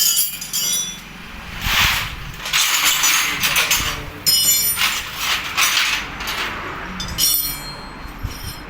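Metal tools and scooter engine parts clinking and rattling against each other, a string of short ringing strikes and scrapes.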